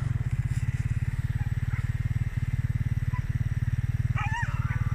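An engine running steadily with a fast, low putter. About four seconds in comes a brief, wavering high squeal.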